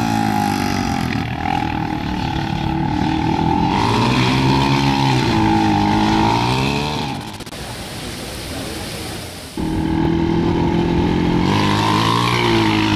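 Sport quad's engine revving hard and easing off as the rider holds wheelies, its pitch rising and falling. About seven seconds in it drops to a lower, quieter running, then comes back loud suddenly about two seconds later.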